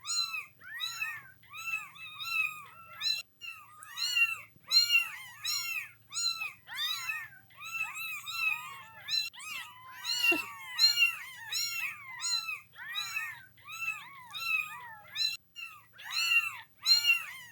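A litter of kittens meowing nonstop: high-pitched, arching mews about two a second, several voices overlapping at times.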